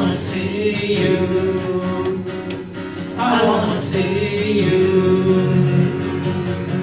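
Live worship music: a woman sings into a microphone over guitar accompaniment in a congregational worship song.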